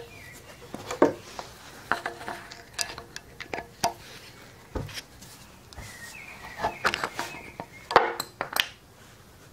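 Steel pincers and a bolt clinking and scraping against a drop-in anchor and the concrete as the anchor is levered out of its hole: a string of sharp metallic clicks and knocks, the loudest about one second in and near the end.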